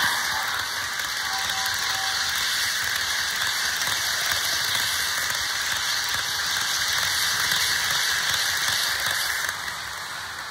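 HO scale Broadway Limited Paragon 4 GE ES44AC model locomotive running, giving a steady, fast mechanical rattle from its drive and wheels. The rattle fades near the end.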